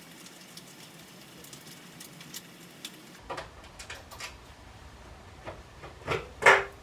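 Scattered light clicks and taps of parts and tools being handled, with one loud knock near the end that rings briefly.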